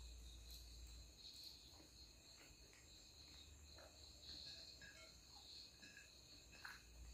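Near silence: a faint high-pitched buzz that swells and fades, with a few soft clicks of fingers and food on plates.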